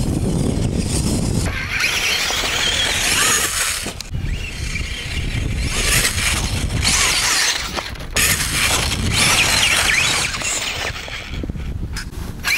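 Brushless electric RC rock buggy's motor and gears whining as it throttles on and off over dirt and a mound, in spurts with short let-offs, over a low rumble.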